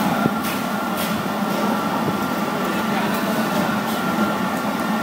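A steady mechanical hum with a low drone and a few held higher tones, under faint background voices, with a few light clicks.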